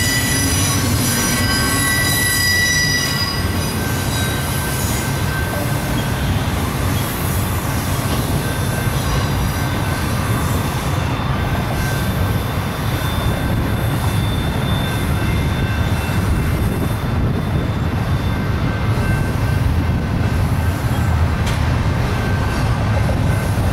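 BNSF double-stack intermodal freight train rolling past, a steady rumble of well-car wheels on the rails. High-pitched wheel squeal is strongest in the first few seconds, then fainter.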